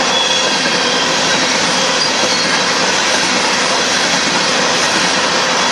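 Union Pacific freight train of covered hopper cars rolling past: a loud, steady rush and rattle of steel wheels on the rails.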